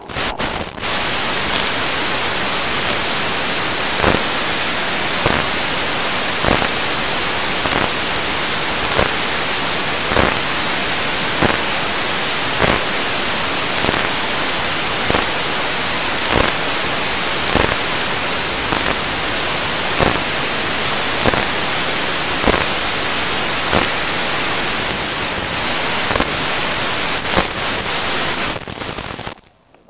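Loud, steady static hiss from a wireless onboard-camera link, with a faint tick about every 1.2 seconds. It cuts off shortly before the end.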